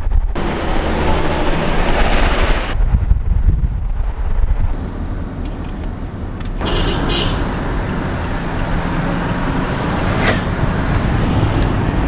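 A car on the move, heard from inside the cabin: steady road and engine noise with a heavy low rumble. The upper hiss drops away for a couple of seconds early and the sound shifts just past halfway.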